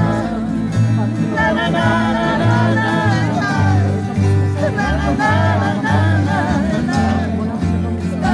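Live acoustic country-style band playing: an upright double bass plucking a bouncing bass line under a strummed acoustic guitar, with voices singing together from about a second in.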